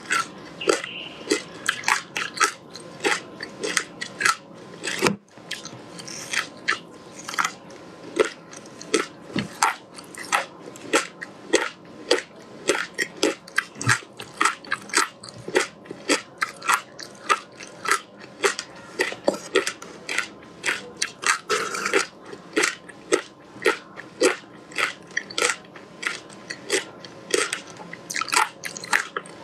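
Close-miked crunching and chewing of a frozen block of passion fruit pulp with its seeds, bitten off and crushed between the teeth. The crunches come as a steady run of sharp cracks, a few a second, with one short pause about five seconds in.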